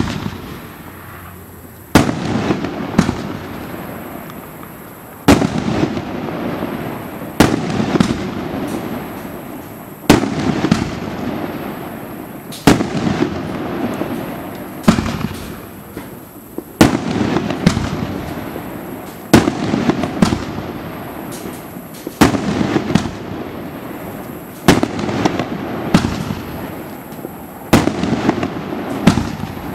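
Super Power B25-5003 Wolf Anger firework cake firing shot after shot, about one every two to three seconds. Each shot comes as two sharp bangs close together, the launch and then the burst, followed by crackling that dies away.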